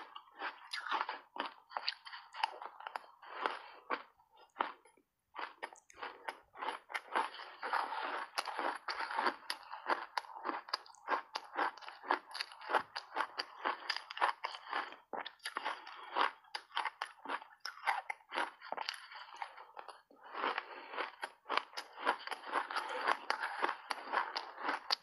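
Refrozen ice dusted with matcha and milk powder being bitten and chewed: dense, rapid crunching, with a short pause about five seconds in.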